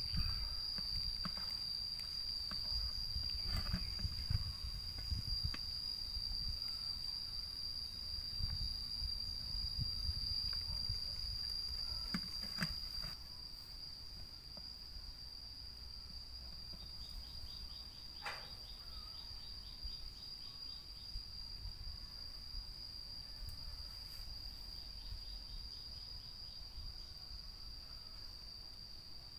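Insects trilling: one steady, high-pitched drone runs throughout, and rapid ticking chirps join in stretches after the middle. A low rumble with scattered clicks fills the first half and drops away about 13 seconds in.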